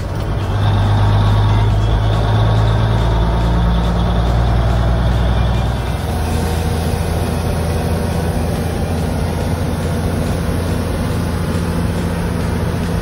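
Brockway 257T truck's Cummins diesel engine running under way, heard from inside the cab as a steady low drone. Its tone changes and drops a little in level about six seconds in.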